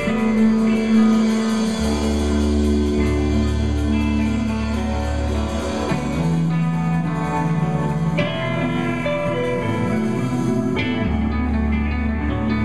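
Live rock band playing an instrumental passage on electric guitars and drum kit, with sustained guitar chords over a low bass line that drops out briefly near the end.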